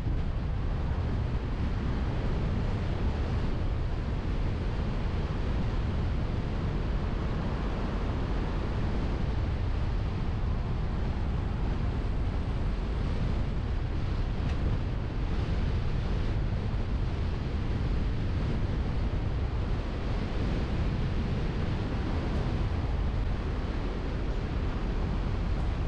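Steady wind buffeting on a car-mounted GoPro's microphone over the low rumble of the car driving, with no breaks or distinct events.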